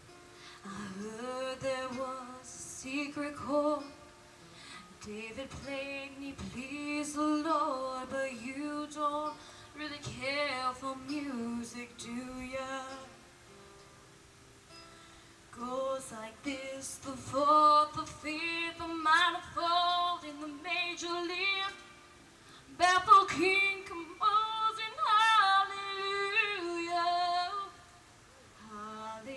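A woman singing a slow song into a microphone, with acoustic guitar accompaniment. Her phrases pause about 13 seconds in and again just before the end.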